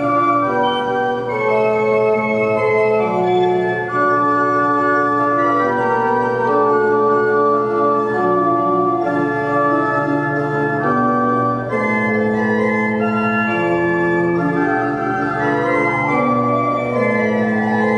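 Church pipe organ playing sustained chords, the notes changing every second or two. From about twelve seconds in, a fainter slow rising-and-falling whine sounds under the music.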